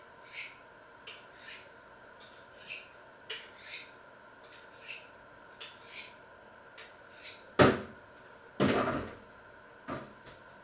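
Light clinks and taps of kitchenware, roughly one a second, then two louder knocks and a short clatter about three-quarters of the way through.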